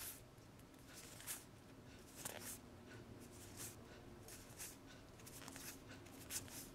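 Faint swishes of trading cards sliding against each other as they are flipped one at a time through a handheld stack, a soft rub about once a second.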